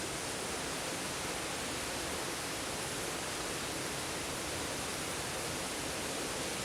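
Steady, even hiss with no distinct sounds in it: no cough or other event stands out.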